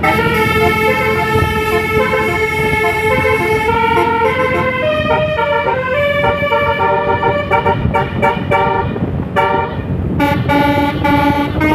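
Basuri multi-tone bus horn ('telolet') playing a melody over steady low noise. The held notes change every half second or so and break into short, quick notes in the last couple of seconds.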